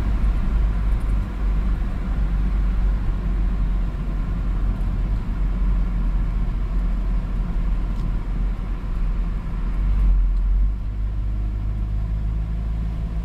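Vehicle driving at speed, heard from the cab: a steady low rumble of engine and tyres under a broad rushing road and wind noise.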